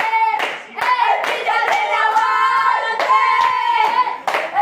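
A small group of voices singing a football chant together while clapping in time, about two claps a second, with long held notes.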